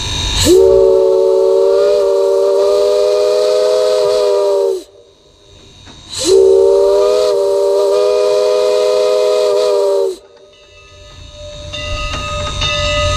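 A steam locomotive's chime whistle blowing two long blasts, each a chord of several notes lasting about four seconds and starting with a brief rush of steam. Two long blasts is the railroad signal that the train is about to move forward. A low train rumble starts to build near the end.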